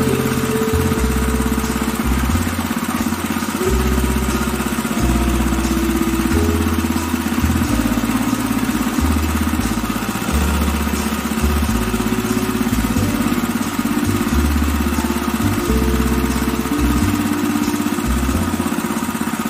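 A 6.5 HP single-cylinder petrol engine running steadily, driving a sugarcane crusher's rollers as cane is fed through.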